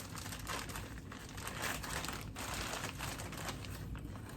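Faint, irregular crinkling and rustling of plastic as brown sugar is handled for measuring.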